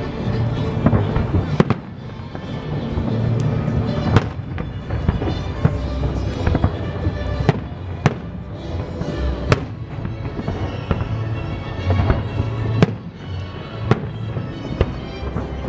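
Aerial fireworks shells bursting overhead, a sharp bang every one to three seconds with crackling between, over music playing.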